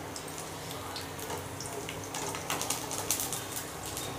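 Chopped garlic sizzling in a little hot oil in a kadhai, a steady sizzle with scattered crackles that bunch into sharper pops about two to three seconds in.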